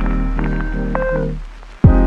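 Background music: pitched notes over a steady beat that fade out about one and a half seconds in, then a new section starts with a deep drum hit and percussion.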